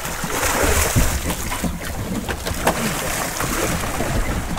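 Water splashing and churning as a hooked conger eel thrashes at the surface alongside the boat, over steady wind noise on the microphone.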